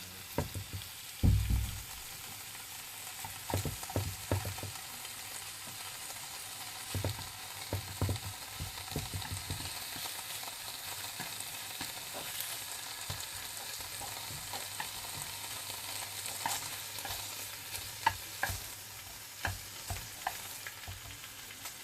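Bánh xèo (Vietnamese crepes) frying in oil in hot pans: a steady sizzle, with scattered knocks and clicks of a utensil against a pan, the loudest about a second in.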